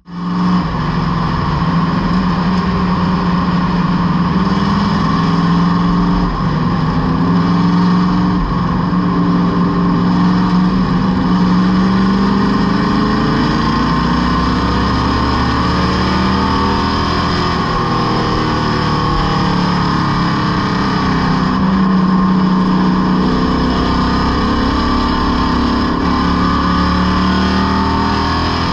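Superstock stock car engine at racing speed, heard from inside the cockpit, its pitch falling and rising several times through the laps.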